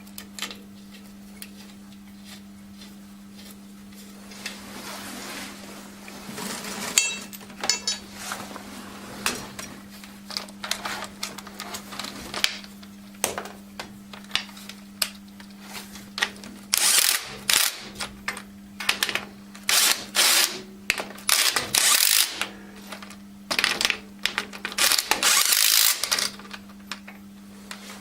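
Hand work on tractor hydraulic parts: scattered metal clicks and knocks over a steady low hum, then, past the halfway point, a string of short harsh bursts of noise, each under a second or so long.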